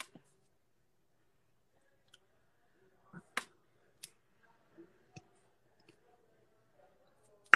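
Faint, scattered light clicks and taps, about half a dozen over several seconds, two close together about three seconds in, from fingers tapping a wall-mounted touchscreen control panel.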